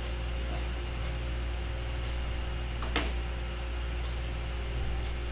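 Steady electrical hum and room noise from desk equipment, with a single sharp click about three seconds in.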